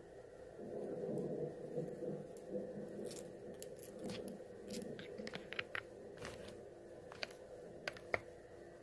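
Metal finger-claw nail covers clicking and tapping against each other, with small metallic ticks and light chain jingles. A soft rustle of hands moving close to the microphone comes first, then a run of sharp clicks, the loudest near the end.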